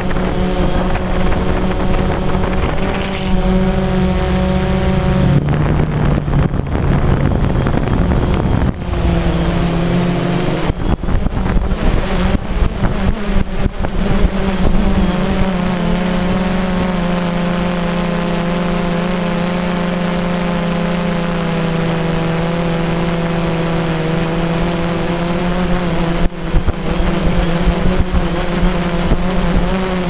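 DJI Phantom quadcopter's motors and propellers droning in flight, a steady pitched hum that steps up and down a few times in the first half as the drone manoeuvres, then holds steady. Wind buffets the microphone in bursts a few seconds in, around the middle and near the end.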